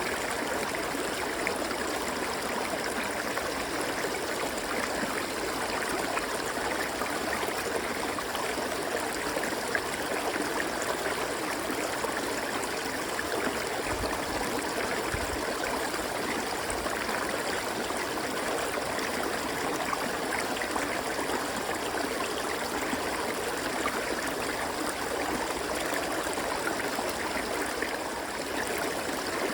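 River water flowing over rocks: a steady rushing and gurgling.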